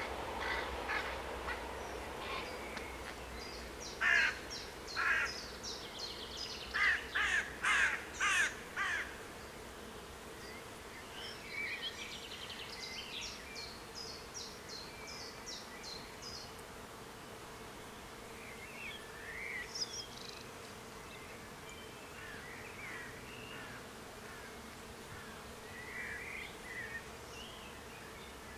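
Crow cawing: two harsh calls, then a quick run of about six louder ones, with smaller birds chirping afterwards. Under it a faint steady hum, and at the start the low rumble of a train that has just passed fades away.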